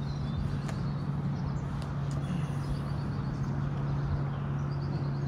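Steady outdoor ambience: a constant low hum over a wide rushing noise, with faint bird chirps now and then.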